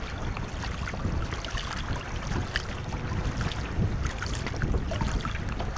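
Wind rumbling on the microphone over water lapping and splashing around a canoe in choppy waves, with scattered small splashes and knocks.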